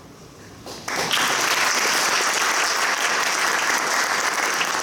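A roomful of people applauding, breaking out suddenly about a second in and carrying on as steady clapping.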